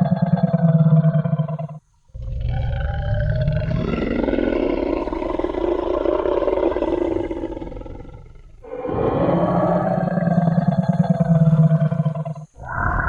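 Movie-style Tyrannosaurus rex roar sound effect: three long, deep roars in a row, separated by brief silences. The middle one is the longest and trails off before the next roar starts.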